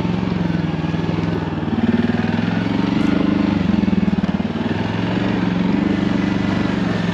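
A motor vehicle's engine running steadily under way, its pitch rising and falling slightly a few times.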